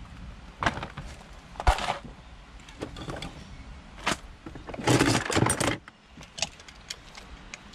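Metal clinks and knocks of an adjustable spanner on a brass LPG filler fitting as the gas hose is tightened onto it: several sharp clicks, the loudest nearly two seconds in, and a longer scraping rustle about five seconds in.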